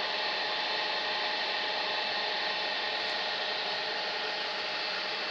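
Steady, even background noise with a few faint steady hums and no distinct knocks or other events.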